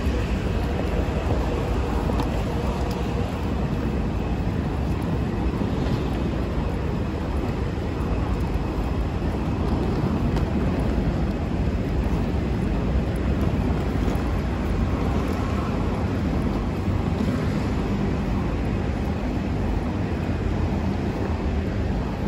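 Steady outdoor rumble of road traffic and airport ambience, heaviest in the low range, with no single event standing out.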